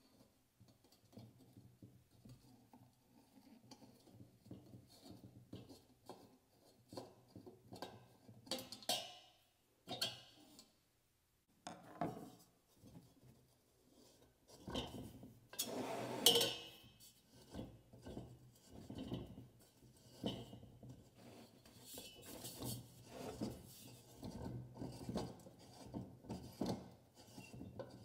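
Metal and glass parts of an old Coleman lantern being handled: irregular light clinks, taps and rubbing, with the loudest clatter about sixteen seconds in.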